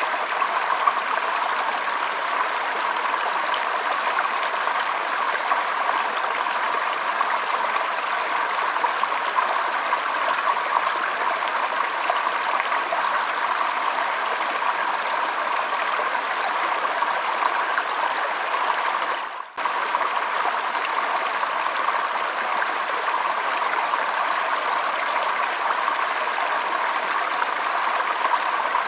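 Shallow stream trickling and flowing steadily. About two-thirds of the way through it drops out for a split second.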